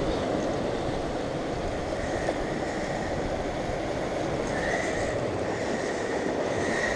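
Sea surf washing against the rocks below, a steady rushing. A faint thin high tone comes and goes over it in the second half.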